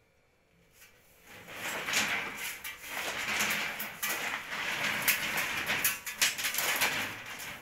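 Plastic-insulated electrical wire rustling and rubbing as it is handled and pulled by hand, with many small clicks. It starts about a second in and goes on almost to the end.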